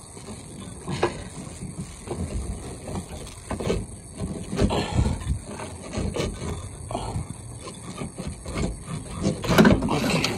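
Irregular knocks, scrapes and rubbing as hands work the old master cylinder loose from the brake booster of a 1976 Chevy Camaro. The loudest knocks come near the end.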